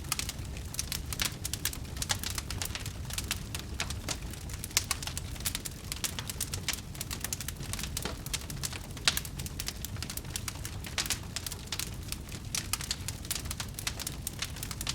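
Wood fire crackling: dense, irregular pops and snaps, a few louder ones standing out, over a steady low rumble.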